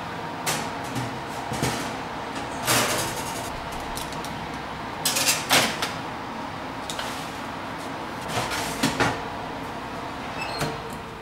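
Metal baking tray being slid onto a wire oven rack and pushed in, with a series of metal-on-metal scrapes and knocks, the loudest about three and five seconds in, over a faint steady hum.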